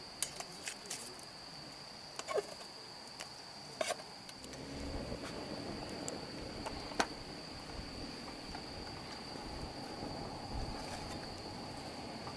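An insect trilling steadily on one high pitch, with a few sharp clicks in the first few seconds and a rough low rumbling noise joining about four seconds in.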